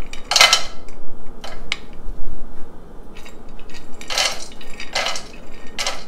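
Cashews and peanuts scraped off a ceramic plate with a spatula, clattering into a non-stick pan in several short bursts.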